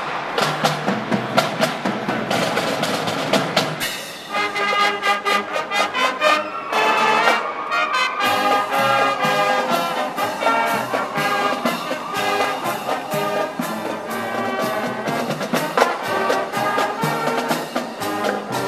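Marching band playing as it passes: saxophones, brass and marching drums, with the drumbeat first and the full tune coming in about four seconds in.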